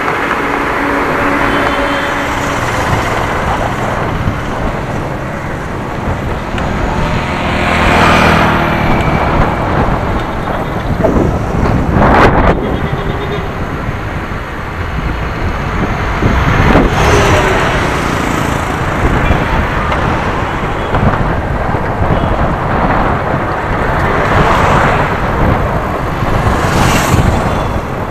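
Road traffic: several motor vehicles pass one after another, each swelling up and fading away, over a steady rushing noise.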